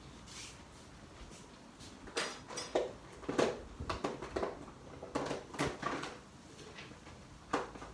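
A series of short knocks and clatters, about eight of them, scattered unevenly over several seconds against a quiet background.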